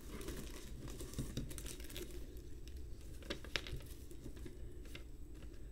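Paper rustling and crinkling as a folded card is drawn out of a box and handled, with a few short, sharp crackles.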